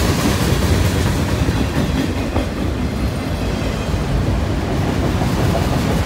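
Freight train cars, mostly autoracks, rolling past on the near track: a steady rumble of steel wheels running on the rails.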